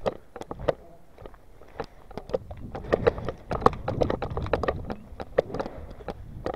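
Footsteps on gravel and rubble with gear knocking and rustling, an irregular run of sharp clicks a few times a second, over a low rumble that swells in the middle.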